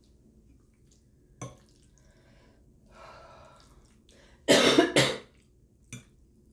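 A woman coughs twice, two loud, short coughs about half a second apart, a little past the middle.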